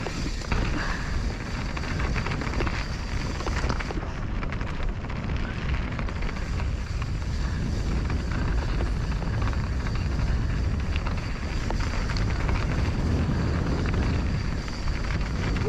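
Mountain bike descending a rough downhill trail, filmed on an action camera: a steady rush of wind on the microphone with a low rumble, and frequent small rattles and knocks from the tyres and bike over the ground.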